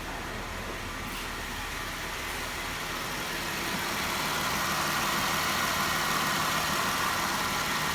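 2012 Jeep Wrangler's 3.6 L Pentastar V6 idling steadily, growing a little louder about halfway through. It runs stable, with misfire counts at zero after the broken cylinder 3 coil connector and the coil were replaced.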